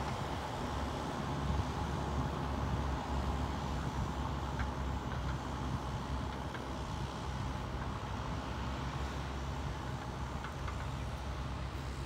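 Diesel engines of JCB backhoe loaders running steadily while working soil, a continuous low rumble with a faint steady whine above it.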